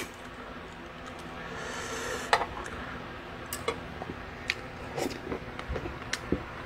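A spoon clinking lightly in a bowl of samgyetang as the last chicken is picked off the bones: sparse, irregular clicks over a low background hum.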